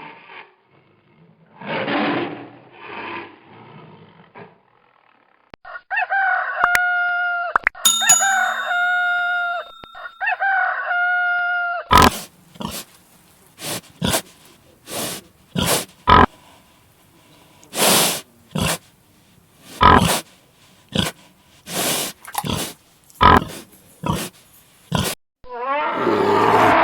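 A run of animal sounds: a few grunts, then a series of repeated pitched calls, then many short sharp calls or knocks, with a roar starting near the end.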